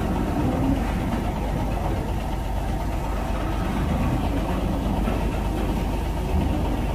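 Heavy diesel truck engine idling steadily, a low even rumble with no changes in speed.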